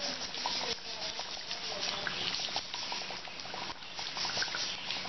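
Rice-and-lentil batter fritters (kandarappam) deep-frying in hot oil in a kadai: a steady sizzle full of fine crackling and bubbling.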